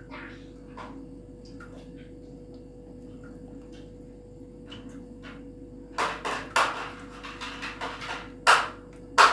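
Spoon stirring tahini into mashed roasted eggplant in a dish, with faint clinks at first, then several loud scrapes and knocks against the dish from about six seconds in.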